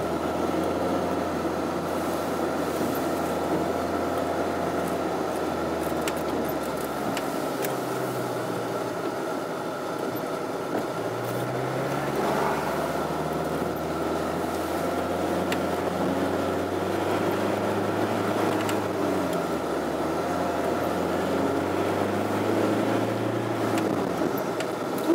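Car engine and tyre rumble heard from inside the cabin while driving uphill, steady in level, with the engine note shifting several times.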